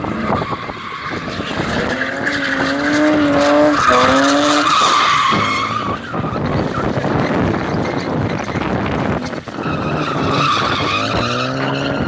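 BMW drift car's engine held at high revs as it slides sideways, tyres squealing and smoking. The engine note climbs in pitch twice, loudest a few seconds in and again near the end, as the driver works the throttle through the drift.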